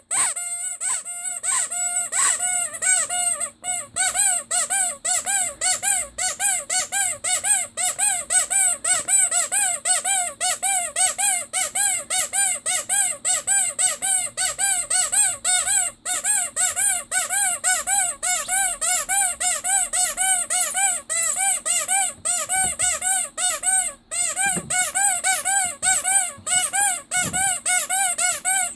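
Rubber squeeze toy with a squeaker (a Ledraplastic figure) squeezed again and again. It gives a long run of squeaks, about three a second, and each squeak rises and then falls in pitch.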